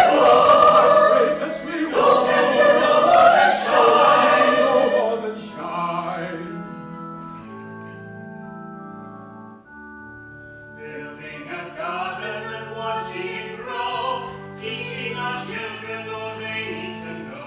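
Stage-musical cast singing loudly as a chorus, the sung phrase ending about five seconds in. Held instrumental accompaniment chords carry on alone for several seconds. Softer singing then resumes over the accompaniment.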